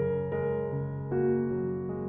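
Background piano music: a slow melody of held notes, with a new note about every half second.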